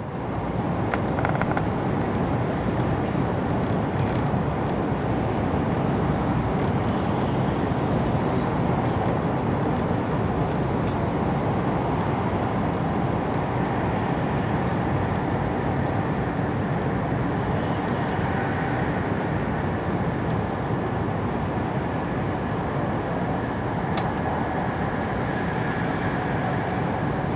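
Steady roar of a Taiwan High Speed Rail 700T train running at speed through a tunnel, heard inside the carriage. It grows louder right at the start as the train enters the tunnel, with a faint whine above the rumble.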